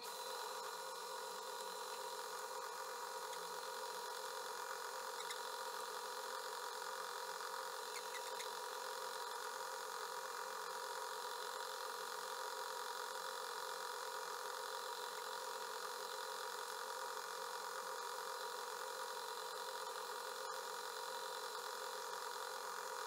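Atlas metal lathe running steadily while a 7/64-inch drill bit bores through an aluminum blank: an even machine hum with several steady high tones.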